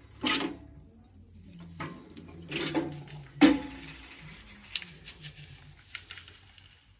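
A metal sieve tray with a wire-mesh screen, loaded with crushed glass, being handled and lifted out of its steel frame. Several sharp metal clanks and rattles, the loudest about three and a half seconds in, then lighter ticks and rattles.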